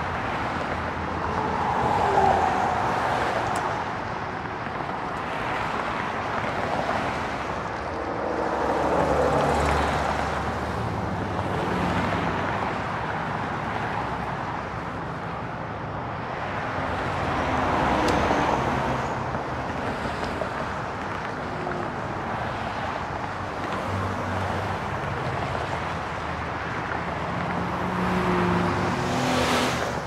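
Freeway traffic streaming past: a continuous rush of tyres and engines that swells as vehicles go by, most loudly about two, nine, eighteen and twenty-nine seconds in.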